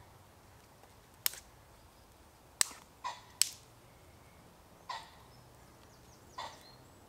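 Dry twigs snapped by hand for kindling: six separate snaps a second or so apart, three of them sharp and crisp, the others softer and crackly.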